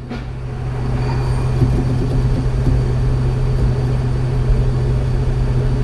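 A 2012 Toyota Highlander running with a steady low hum that grows louder over the first second, then holds steady.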